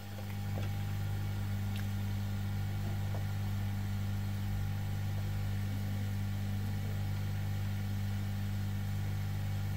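Hot air rework station running: a steady low electrical hum with a few even tones above it.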